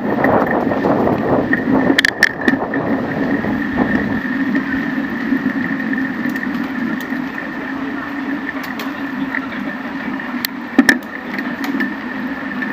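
Bicycle riding along a paved path, heard from a camera mounted on the bike. Wind rumbles on the microphone at first, then a steady hum with a higher whine runs on, broken by a few sharp clicks and rattles about two seconds in and again near the end.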